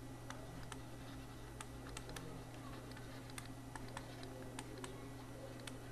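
Faint, irregular clicks and taps of a stylus on a graphics tablet during handwriting, several a second, over a steady low electrical hum.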